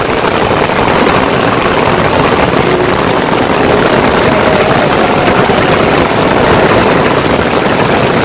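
Heavy rain with strong wind gusting over the microphone: a loud, steady rushing noise with an uneven low rumble.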